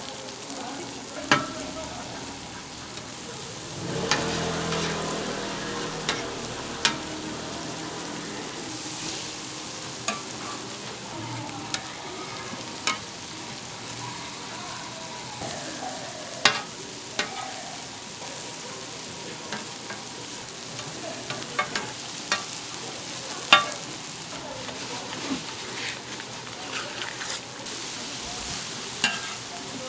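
Food frying with a steady sizzle, broken every few seconds by sharp clinks of metal cooking utensils.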